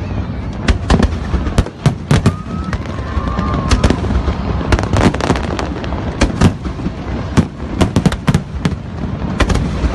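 Fireworks display: a dense, irregular string of sharp bangs over a continuous low rumble, with a brief whistle a few seconds in.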